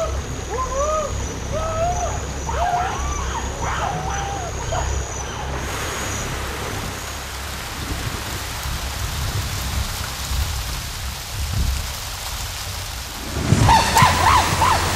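Heavy rain falling on forest foliage over a low rumble of thunder. For the first five seconds a run of short rising-and-falling tones sounds over it. Near the end chimpanzees break into loud, rising calls.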